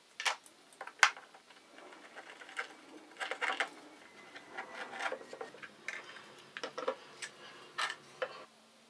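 Steel bar clamps clicking and rattling as they are slid along and tightened, their jaws knocking against plywood: a run of irregular sharp clicks and knocks, the loudest about a second in.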